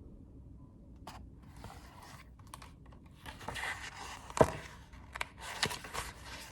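Paper rustling and scraping as a picture book's pages are handled and turned, with a sharp tap about four and a half seconds in.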